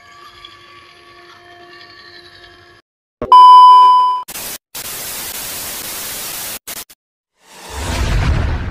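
TV-static glitch transition effect: a click and a loud steady beep of about a second, then about two seconds of hissing white-noise static that cuts off suddenly. Near the end a rising whoosh with a low rumble swells in.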